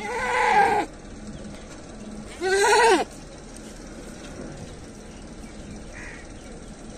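Two goat bleats: the first lasts under a second, the second is shorter, about two and a half seconds in, and each rises and then falls in pitch.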